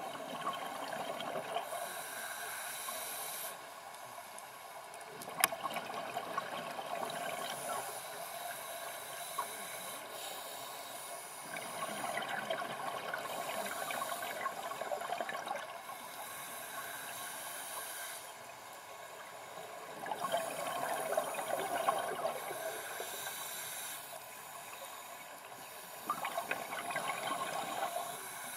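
Scuba diver breathing through a regulator, heard underwater: a hissing inhalation alternating with a stretch of bubbling, crackling exhalation, about four breaths in all.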